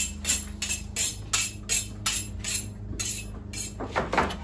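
Kitchen knife being honed on a sharpening steel: quick, even metallic swipes about three a second. Near the end, faster knife strikes on a chopping board take over.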